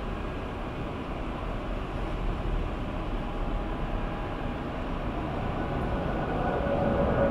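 Jet aircraft engines running across the airfield: a steady low rumble and hiss with a faint whine, growing louder with a stronger whine toward the end.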